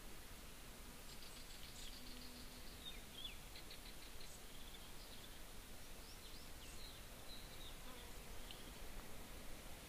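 Faint small-bird chirps and quick trills, some with short pitch glides, over a quiet steady hiss of outdoor background.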